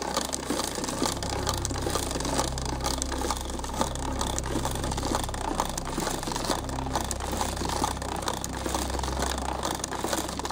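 Hand-cranked wooden automaton mechanism running: a continuous clatter of many small clicks from its wooden wheels and linkages, with a steady low rumble underneath.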